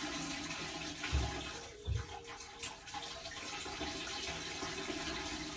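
Steady rush of running water, with two dull low thumps about one and two seconds in.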